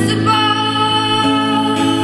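A woman singing long held notes to her own acoustic guitar accompaniment, live.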